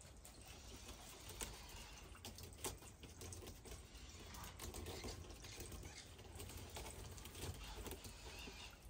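Faint, irregular clicking and scratching of a coati's claws gripping a hanging rope and tire swing as it climbs.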